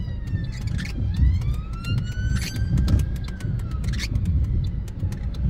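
An emergency-vehicle siren wailing, its pitch sliding slowly down, up and down again, heard from inside a stationary car over the low rumble of the cabin.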